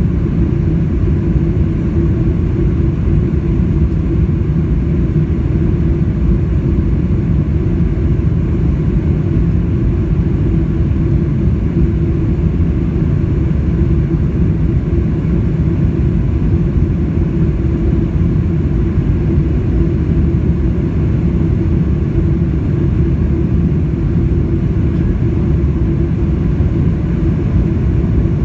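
Steady cabin noise inside a Boeing 747-400 airliner: its four engines running at power with airflow, heard as a loud, even rumble with a steady hum.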